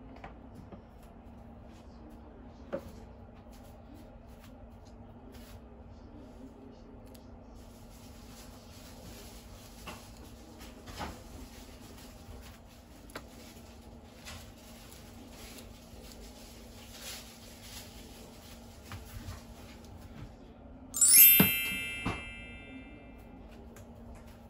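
A magnetic holder snaps onto a steel wall panel with a sharp metallic clack and a brief ring, followed by a second, lighter click about a second later. Before that come soft scattered handling clicks and taps.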